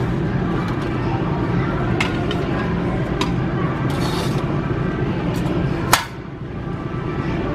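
Metal parts of a small grill clinking and knocking as the bowl, grate and lid are handled and nested together, with the sharpest knock about six seconds in, over a steady low background hum.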